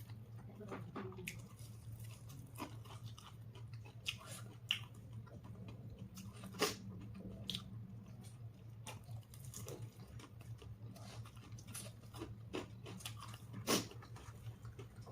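A person chewing and biting food close to the microphone, with irregular small wet clicks and crunches and two louder sharp clicks, over a steady low hum.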